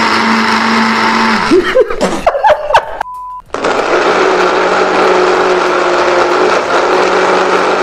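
YUI retro smoothie blender motor running steadily on apple pieces. It winds down about a second and a half in. A short pure beep follows about three seconds in, then the blender runs steadily again.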